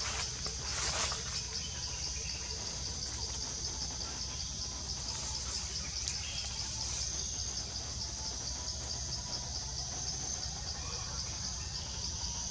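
Steady insect chorus, a high pulsing buzz, over a low background rumble, with a brief broad noise about a second in.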